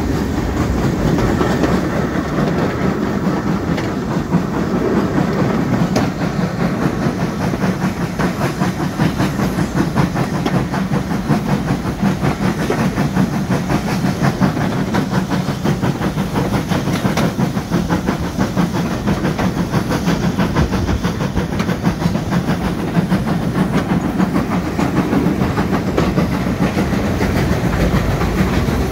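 Two steam-hauled trains running side by side at speed, heard from an open carriage window: steady wheel clatter over the rail joints mixed with the working steam and exhaust of LMS Stanier 8F 2-8-0 No. 48305 on the adjacent track.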